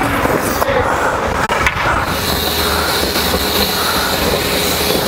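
Ice hockey skate blades scraping and gliding on rink ice, heard close up through a player-worn microphone, with a couple of sharp clicks in the first two seconds.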